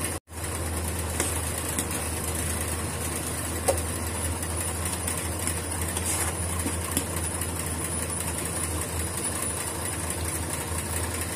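A steady low hum with a faint high whine above it, and a few faint clicks of the spatula against the pan.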